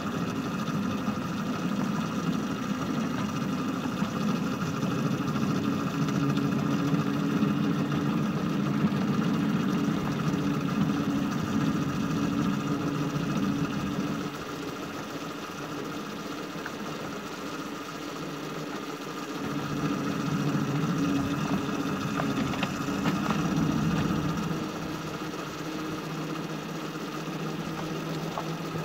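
Miniature railway shunter locomotive's engine running as it travels along the track. The engine note eases about halfway through, picks up again for a few seconds, then settles lower near the end.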